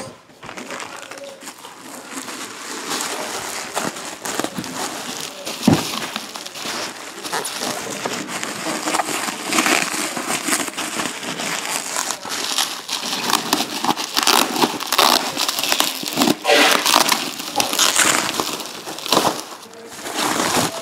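Plastic bubble wrap crinkling and rustling as hands handle it, a dense run of small crackles, with one sharp thump about six seconds in.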